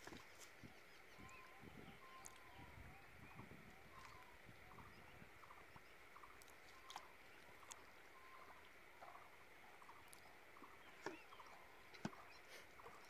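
Near silence: faint outdoor ambience, with short faint chirps repeating and a few soft clicks.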